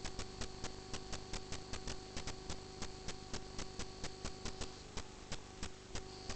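Drain inspection camera equipment: rapid, fairly regular clicking, about four to five clicks a second, over a steady electrical hum.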